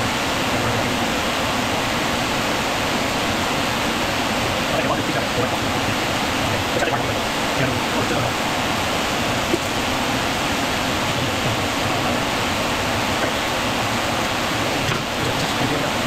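Shop fan running, a steady rush of air.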